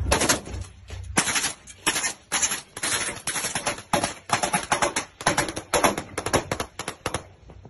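Close-range gunfire from the ship's deck guns, in short irregular bursts of several shots a second, loud and sharp, dying away near the end.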